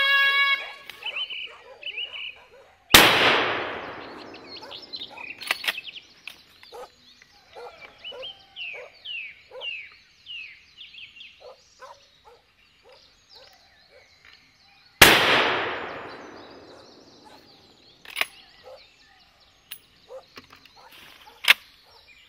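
Two rifle shots about twelve seconds apart, each echoing through the woods for a second or two. Between them, hunting dogs yelp and bay in short, repeated cries.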